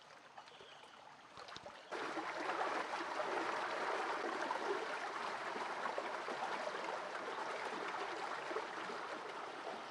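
Shallow rocky stream flowing over stones, a steady rush of water. It is faint for the first couple of seconds, then comes in suddenly louder and close about two seconds in.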